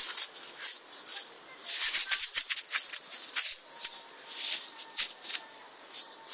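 Blueberry shrubs rustling in short, irregular bursts as a papillon dog pushes and noses through them.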